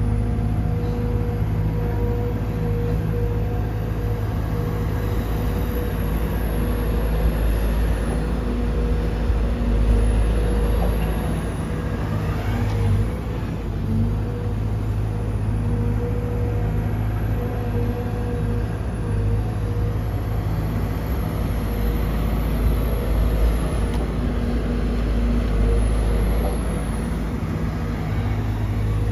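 Diesel engine of a Sumitomo SH210-6 hydraulic excavator running steadily under working load as it loads a dump truck. The engine note swells a little as it works, with a brief rise in pitch about twelve seconds in.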